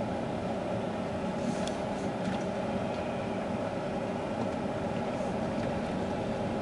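Steady engine and road noise of a car driving on wet pavement, heard from inside the cabin.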